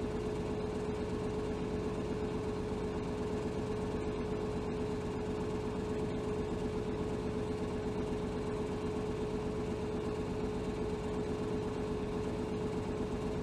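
Interior sound of a 2007 Hino HR city bus (BDG-HR7JPBE): a steady drone of the engine and running gear with one constant tone held through, unchanging in level.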